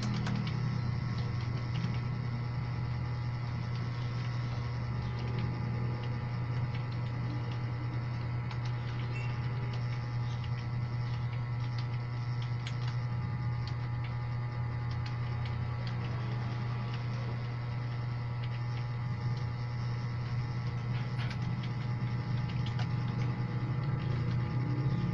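Computer keyboard keys clicking faintly and irregularly as someone types, over a steady low hum.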